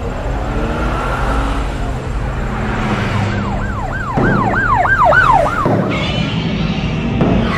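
Steady low traffic hum. About three seconds in, a siren starts wailing in quick rising-and-falling sweeps, about three a second, for roughly two and a half seconds, then stops.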